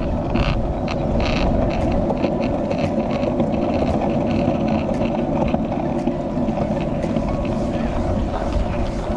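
Skateboard wheels rolling over a concrete footpath: a steady rumble with light ticks about once a second, and wind on the microphone.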